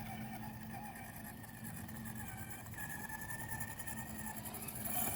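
RC rock crawler's brushed 550 13-turn motor and super-low gearing running, a faint steady whine with a higher-pitched tone coming up about three seconds in.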